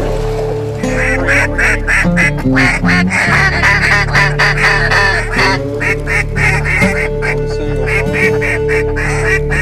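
Rapid duck quacking and chatter starting about a second in, over steady background music.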